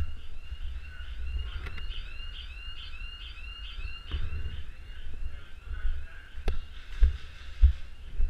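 Electronic siren yelping in a fast repeating rise and fall, about two and a half cycles a second, from a small battery device with flashing red and blue lights; it is strongest in the first half. Low knocks and a sharp click about six and a half seconds in.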